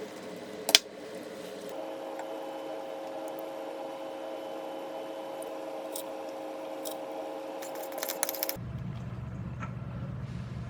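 A sharp click, then a steady mechanical hum with an even tone. After a few small clicks near the end, it switches abruptly to a lower hum.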